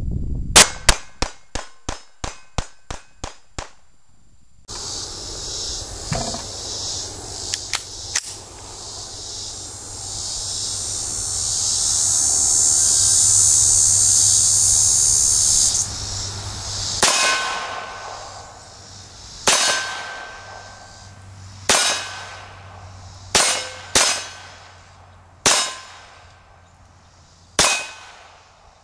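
.22 LR pistol (GSG 1911-22) fired in a fast string of about nine shots over the first few seconds. After a stretch of steady high hiss, slower aimed shots follow about every two seconds, each with a short metallic ring.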